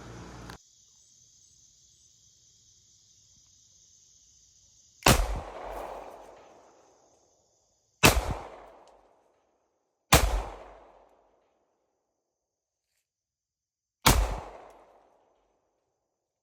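Four single shots from a Glock 26 subcompact 9mm pistol, unevenly spaced (about 5, 8, 10 and 14 seconds in), each a sharp crack followed by an echo that dies away over a second or two.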